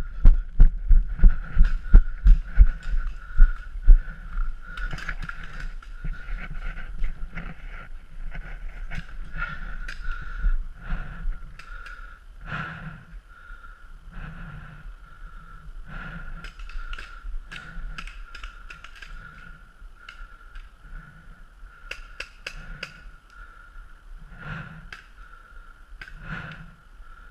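Footsteps jolting a head-mounted action camera: quick heavy thumps for the first few seconds, then slower, softer steps about once a second, with scattered sharp clicks and a faint steady high whine throughout.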